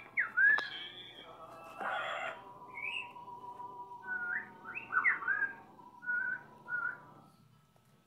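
Whistling: a string of short notes, several sliding up or down, with pauses between them. A brief rustle comes about two seconds in.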